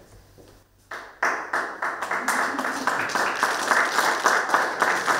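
Applause: a group of people starts clapping about a second in and keeps up a steady, fast clapping.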